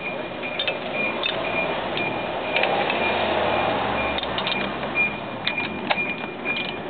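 Metal hand tools clinking and ratcheting against the variator of a 50cc scooter as a wrench is worked onto the variator nut, in scattered sharp clicks. A faint high note repeats about twice a second in the background.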